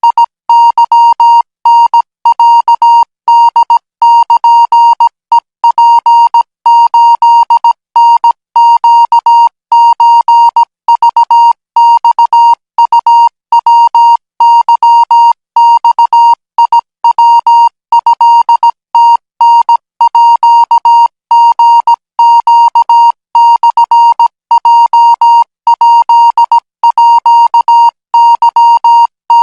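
Thai Morse code practice signal sent at 20 words per minute: a single steady-pitched tone keyed on and off in short and long elements, dots and dashes, with brief gaps between characters.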